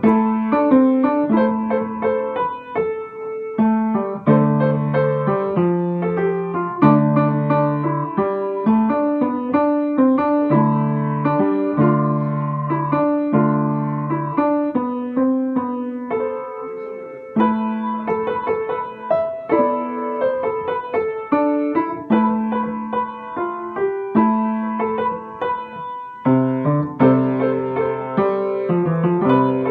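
Solo piano played by hand: a slow, subdued tune of sustained chords over low bass notes, with a melody above.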